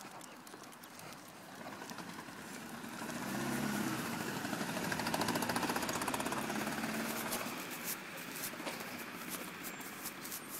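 A motor vehicle driving past, its engine swelling over a few seconds, loudest around the middle, then fading away.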